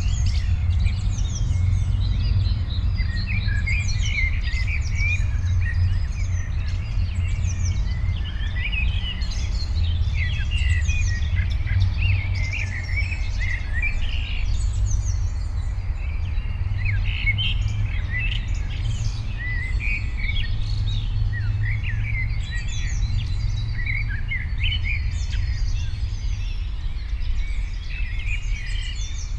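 Many small birds chirping and trilling together in a dense, continuous chorus of short, quick calls, over a steady low rumble.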